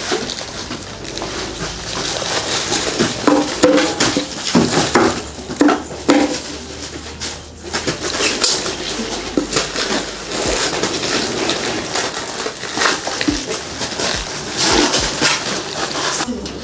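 Handling noise from packing firecrackers by hand: paper and cardboard packets rustling, with many small clicks and knocks as they are stacked and handled.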